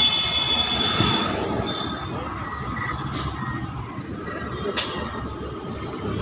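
Hyundai i10's steering squealing in thin high tones over the low running of the engine, with two brief clicks about three and five seconds in. The steering is catching as it turns.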